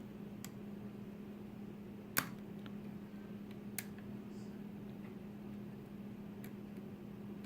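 Pin tumbler challenge lock being picked: four sharp, small clicks of the pick and pins in the core, the loudest about two seconds in, over a steady low hum.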